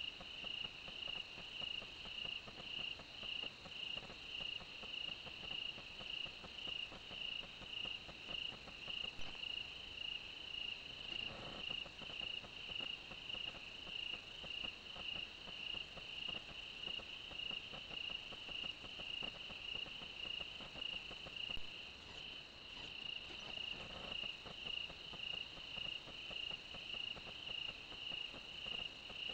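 Crickets chirping in a steady night chorus, an even pulsing at about two to three chirps a second that never lets up. There are faint low rustles twice, about a third of the way through and again near the end.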